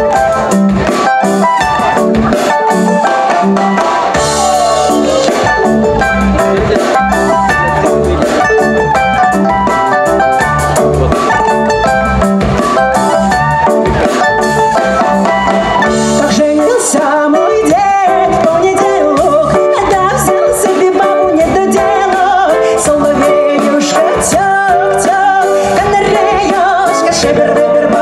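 Folk-fusion band playing a song live: drum kit and guitar, with a sung melody line coming in around the middle.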